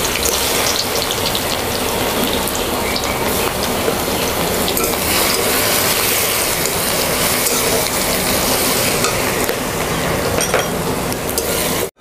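Garlic sizzling steadily in hot oil in a metal kadai, with a metal spatula clicking and scraping against the pan. The sizzle cuts off abruptly near the end.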